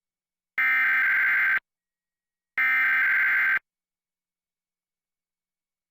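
Emergency Alert System SAME header: two bursts of harsh digital data tones, each about a second long and a second apart, carrying the encoded alert message.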